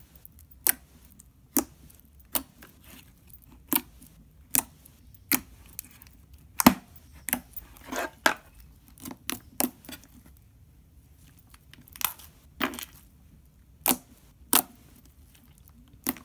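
Slime pressed and kneaded by hand, making irregular sharp clicks and pops about once a second, with a short pause before they resume.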